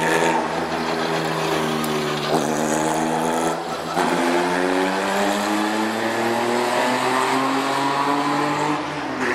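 Open-cockpit sports prototype race car's engine pulling away under power. The pitch climbs, drops sharply on upshifts about two and four seconds in, then rises steadily through the next gear.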